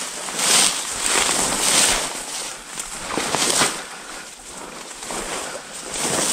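Footsteps through tall dry grass, the stalks swishing and crackling against the legs with each stride, easing off for a moment after the middle.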